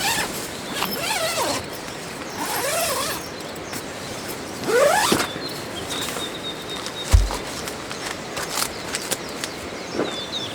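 Steady rush of a river under several bird calls that glide up and down in pitch, the loudest a rising call about five seconds in. A soft thud just after seven seconds and a few light clicks near the end.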